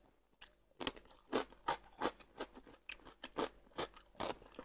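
Close-up chewing of food, wet and crunchy, about three chews a second. Near the end comes a bite into a piece of fresh cucumber.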